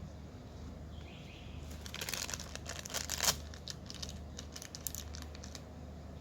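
Plastic toy packaging crinkling as it is handled and opened, in a dense run of crackles about two to three seconds in, then scattered crackles.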